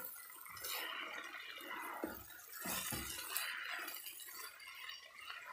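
Okra, onion and tomato frying in oil in a non-stick pan with a steady sizzle while a spatula stirs them, with a few soft scrapes and knocks of the spatula against the pan in the middle.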